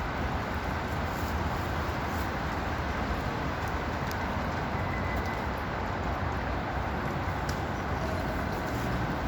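Strong wind blowing, a steady rushing noise with a low, unsteady rumble from gusts on the microphone.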